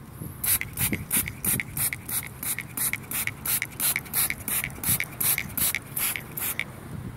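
Hand trigger spray bottle squirting onto pepper plant leaves in a quick, even run of short hissing sprays, about three a second, stopping shortly before the end.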